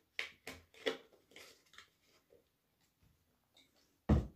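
Cardboard juice carton being closed and handled: a run of short rustles and taps in the first two seconds, then one loud dull thump near the end.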